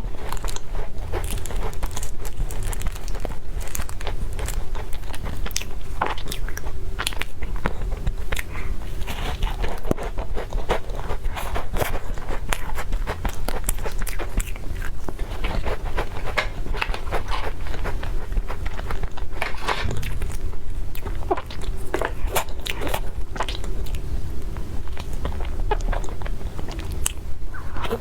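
A person biting and chewing food close to the microphone: many small irregular crackles and clicks, over a steady low hum.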